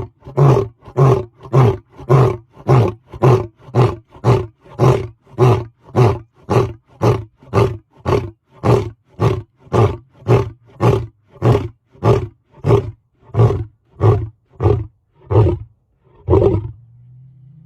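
An animal calling in a steady run of short, evenly spaced pulses, nearly two a second, which stop about a second before the end.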